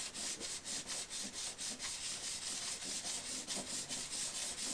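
Faber-Castell Polychromos hard pastel stick scraping across paper in quick back-and-forth strokes, about five strokes a second, as colour is scribbled on.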